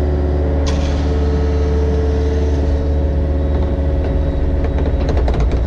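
Mini excavator's diesel engine running steadily under load, with a few sharp clicks or knocks near the end.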